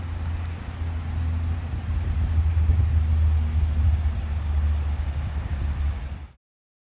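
Toyota Corolla hatchback drawing up slowly to the kerb to park, a steady low engine and road rumble that grows a little louder as it nears, then cuts off suddenly about six seconds in.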